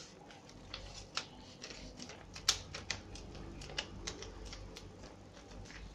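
A sheet of paper being folded and creased by hand for origami: irregular crackles and rustles, the sharpest about two and a half seconds in.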